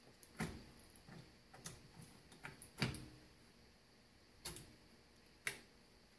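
Irregular sharp clicks and taps, about seven of them, the loudest a little before the halfway point, as a hand tool works a brake shoe hold-down pin and spring into place on a rear drum brake's backing plate.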